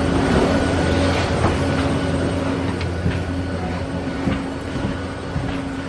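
Steady low machinery hum at an aircraft door and jet bridge, easing a little in level as it goes, with scattered light clicks and knocks.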